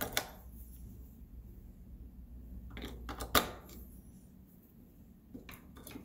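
AA batteries being pressed into the spring-contact battery holder of a Yale Z-Wave lock: sharp clicks and snaps of batteries against the metal springs and plastic holder. They come in three clusters, the loudest about three and a half seconds in.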